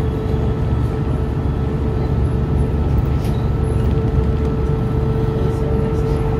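Inside a running New York City bus: a steady low engine and road rumble with a constant whine over it.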